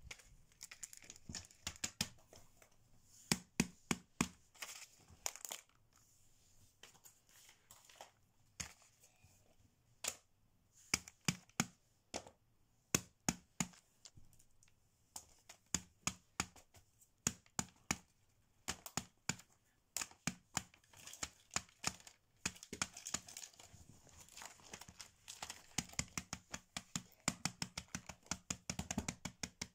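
Fidget toys being handled and set down on a paper mat: irregular sharp clicks and taps with crinkling of the sheet. The taps come thicker and faster near the end.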